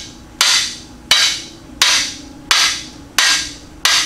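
Hammer striking the steel driver bar of a cam bearing removal tool: six evenly spaced blows, about two-thirds of a second apart, each ringing briefly. The blows are driving a camshaft bearing out of the engine block.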